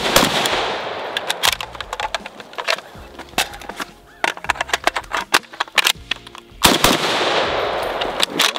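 Century Arms C308 roller-lock battle rifle in 7.62 NATO firing a quick string of shots that ring out across the range, then the metallic clicks and clacks of a magazine reload: mag released and dropped, a fresh one seated, the cocking handle pulled back and slapped down. Shots ring out again about seven seconds in.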